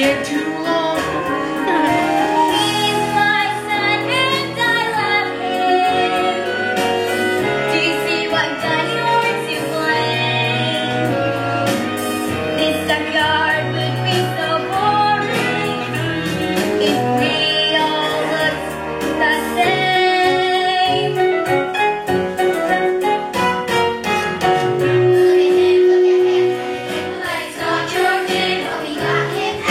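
Singers performing a musical-theatre song over instrumental accompaniment.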